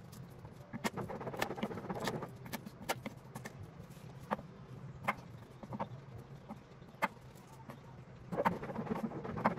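Kitchen knife on a wooden chopping board, crushing garlic cloves and cutting shallots: scattered sharp knocks on the board, with busier crunching and rustling about one to two seconds in and again near the end.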